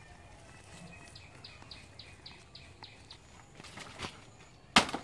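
A bird calling a quick run of about eight short, high, falling notes, a few each second. Near the end there is one sharp knock, much louder than the rest, with leaves rustling just before it.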